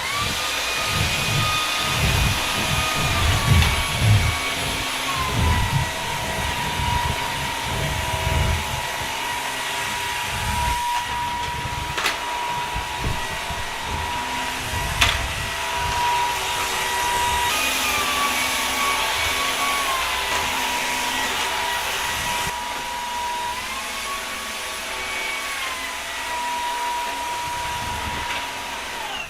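Vacuum cleaner running steadily, its motor whine stepping down in pitch and back up again a few times. Irregular low thumps and bumps sound under it, mostly in the first ten seconds.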